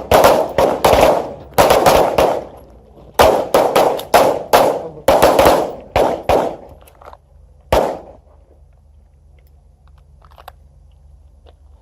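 Several pistols firing from a line of shooters, a ragged string of many overlapping shots for about eight seconds, then the firing stops.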